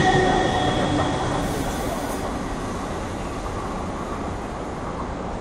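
Passenger train running past on the rails and drawing away, its wheel and rail noise fading steadily. High wheel tones die out in the first second or so.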